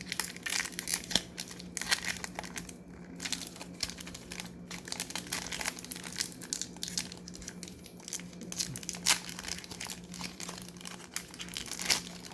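Plastic foil wrapper of a 2019-20 Panini Chronicles basketball card pack crinkling and tearing as it is opened, with many sharp, irregular crackles.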